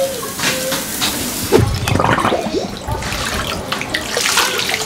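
Meat sizzling on a small barbecue grill, then, about a second and a half in, water splashing and pouring as a plastic cup scoops and tips water in a paddling pool.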